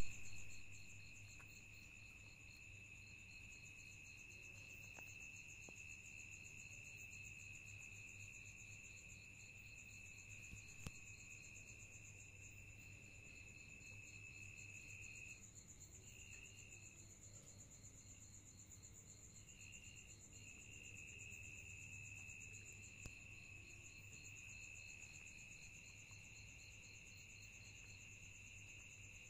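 Night insects chirring steadily in two high pitches, the lower one stopping for a few seconds about halfway through, over a faint low hum.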